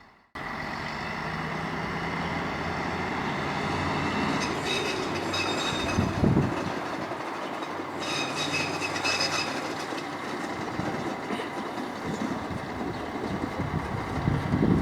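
A train moving through a station: a steady low engine hum with rail and wheel clatter and some high squeals, and a heavy thump about six seconds in.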